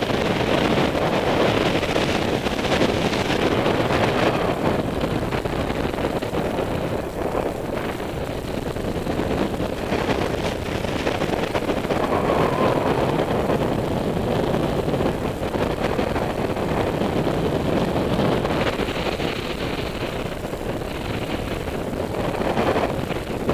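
Wind rushing over the microphone of a paraglider pilot's camera in flight, a steady noise that swells and dips a little.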